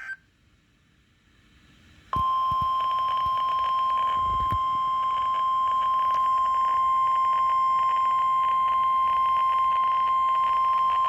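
Emergency alert warning tone received over weather radio: a single steady beep just above 1 kHz, the 1050 Hz NOAA Weather Radio alarm tone, which starts suddenly about two seconds in and holds for about nine seconds over faint radio static. It signals that a severe thunderstorm warning message is about to be read.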